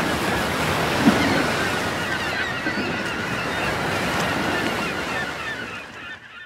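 Ocean sound: a steady rush of waves and surf that fades out over the last second or so.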